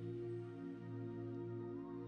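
Soft background music with steady held tones.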